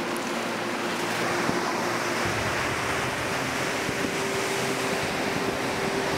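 Ocean surf: waves breaking and washing in, a steady rushing noise that takes on a fuller low rumble about two seconds in.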